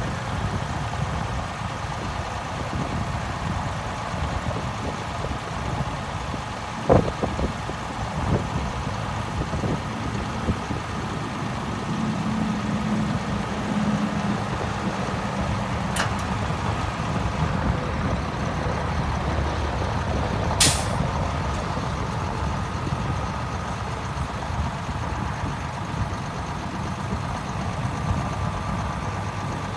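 International 7400 dump truck's diesel engine idling steadily while its hydraulics work the snowplow and dump bed, with a sharp knock about seven seconds in and a short hiss of air about two-thirds of the way through.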